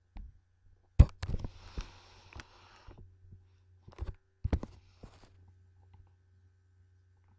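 A cat jumping down from a desk: a sharp knock, then a heavier thump about a second in as it lands, followed by rustling and a few smaller knocks. A second cluster of knocks and rustling comes around four and a half seconds in as the cat comes up against the camera, over a faint steady electrical hum.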